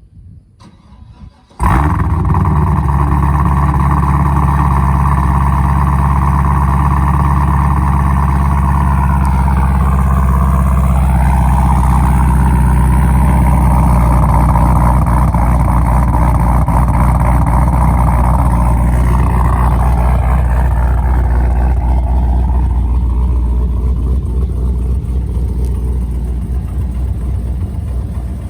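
Supercharged, cammed 2012 Cadillac CTS-V V8 with headers and Borla exhaust catching on a cold start about two seconds in and running at a loud, steady fast idle. The idle gets gradually quieter from about twenty seconds in.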